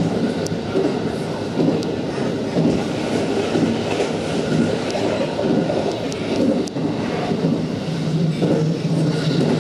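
Running noise of a JR West 223 series 2000 electric train heard from inside the car: a steady rumble of wheels on rail with motor and inverter hum, and a few sharp ticks.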